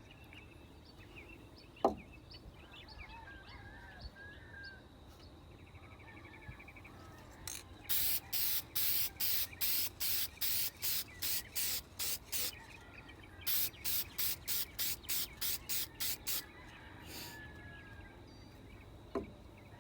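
Aerosol can of Rust-Oleum clear lacquer sprayed in quick short bursts, about three a second, in two runs with a brief pause between them, laying a coat of clear over a painted magazine. Faint bird chirps in the background.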